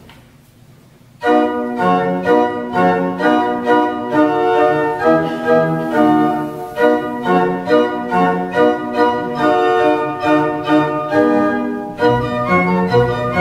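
Martin Podkonický's 1751 baroque pipe organ starting a Renaissance dance about a second in: brisk, rhythmic chords over a moving bass line, with a short break near the end before the next phrase.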